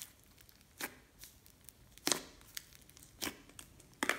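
Thick slime squeezed and pulled apart by hand, giving short, sharp crackling snaps and pops about a second apart. The loudest comes about two seconds in.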